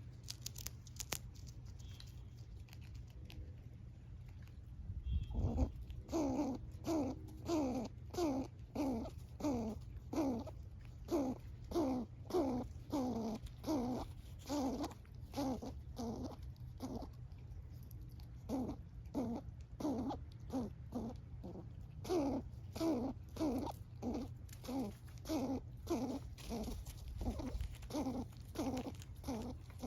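Eastern gray squirrel calling: a long run of short, falling calls, about two a second, starting about five seconds in.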